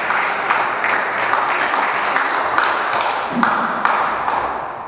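Small crowd of spectators applauding, many hands clapping at once, dying away near the end.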